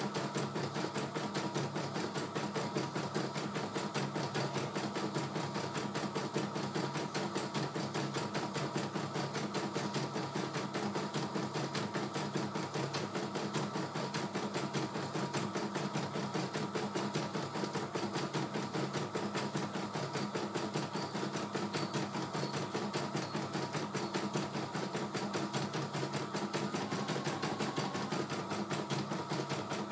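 CNY E900 computerized embroidery machine stitching a design, its needle running in rapid, even strokes as the hoop moves the fabric.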